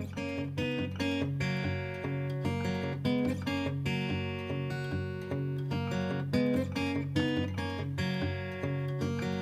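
Acoustic guitar background music: plucked and strummed chords over a moving bass line, at a steady, even pace.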